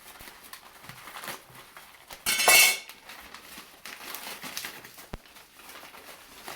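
A parcel being opened by hand: scattered clicks, scrapes and handling noises, with one loud rasping noise about two and a half seconds in and a sharp click a few seconds later.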